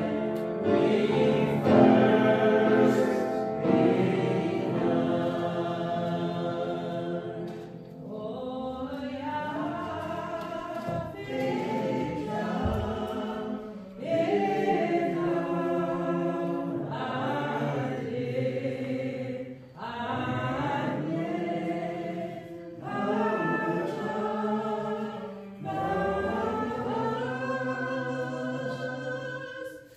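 Voices singing a slow hymn, holding long notes in phrases a few seconds each, with brief breaks between the lines.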